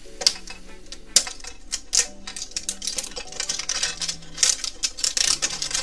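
Plastic shrink wrap on a Pokémon TCG mini tin crinkling and crackling as it is handled and peeled open, in quick irregular clicks and rustles.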